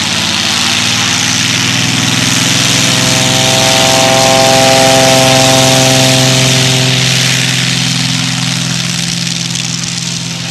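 Fletcher FU24-950 topdressing plane's engine and propeller running as it taxis past on the grass strip. The plane has a 400 hp Lycoming flat-eight engine. The sound swells to its loudest about halfway through and then fades as the plane moves away.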